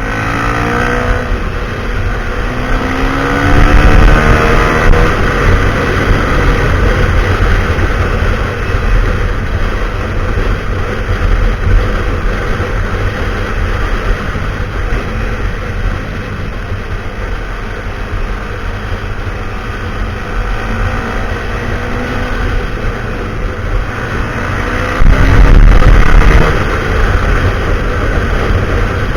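Husqvarna SMR 511's single-cylinder engine running through a full Akrapovic exhaust. It revs up with rising pitch near the start, runs steadily, and revs up loudly again about 25 seconds in.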